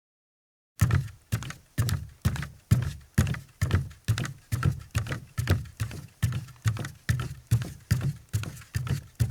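A man's bare feet walking on a deck: a steady run of about twenty dull footfalls, a little over two steps a second, starting about a second in.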